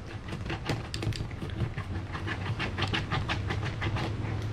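Screwdriver scraping and picking old foam padding off the plastic backing of a car door panel: a quick, irregular run of short scratchy strokes, several a second, over a steady low hum.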